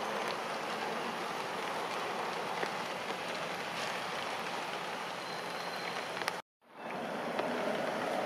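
Steady rain falling on leaves and grass, an even hiss with a few faint sharp drip ticks. The sound cuts out for a moment about two-thirds of the way through, then resumes.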